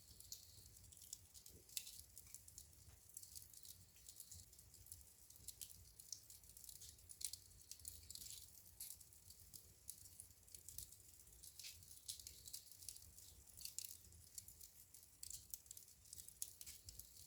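Wood fire crackling in a fireplace: a steady run of small, sharp snaps and pops over a low rumble, with a few louder pops scattered through.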